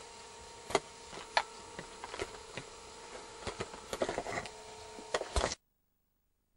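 Handling noise of a handheld camcorder being moved about: a steady faint hum with irregular clicks and knocks, busiest in the second half, cutting off suddenly near the end.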